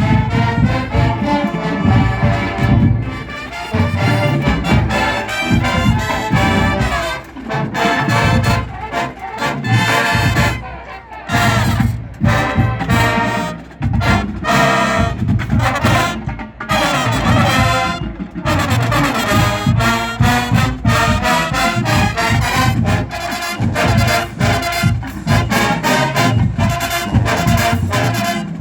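College marching band playing a brass-heavy number, full brass over a steady drum beat.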